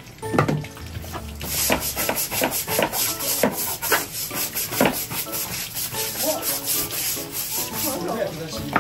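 Asian small-clawed otter scratching and scrabbling with its claws at wooden deck tiles and the gap beside a plastic planter: a fast run of rasping scrapes from about a second in until near the end.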